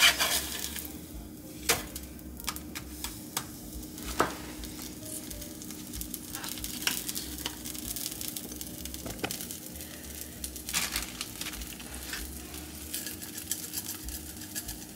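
Tortilla quesadilla frying in a nonstick skillet over a gas burner: a steady sizzle, broken by scattered sharp clicks and scrapes. The first and loudest come as a spatula turns the quesadilla in the pan.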